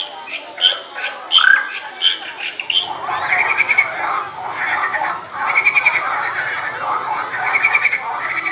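Frogs croaking: a run of short, evenly spaced croaks, then from about three seconds in four longer rattling, pulsing croaks.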